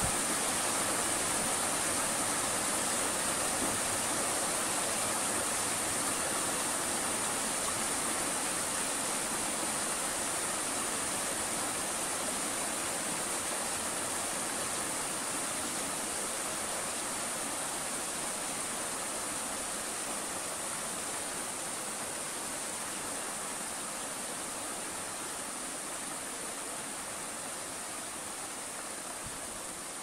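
A stream running over rocks, a steady rush of water with a constant high hiss on top. It slowly grows quieter.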